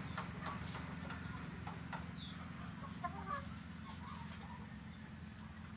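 Chickens clucking a few times, about three seconds in, over a steady low hum.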